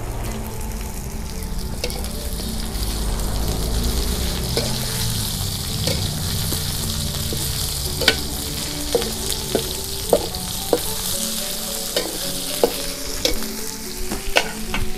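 Fried tofu sizzling as it is stir-fried in a steel wok, with a metal spatula scraping and knocking against the pan. The sizzle is steady, and the spatula's sharp knocks come more often in the second half.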